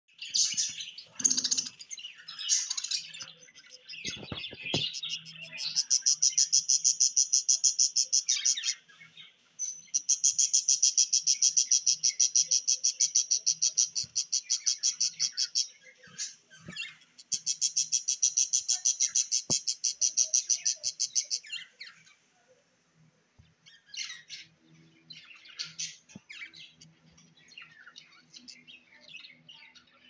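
Parrot nestlings begging: irregular high chirps and squawks at first, then three long runs of rapid, evenly pulsed high calls lasting a few seconds each, and only softer scattered chirping near the end.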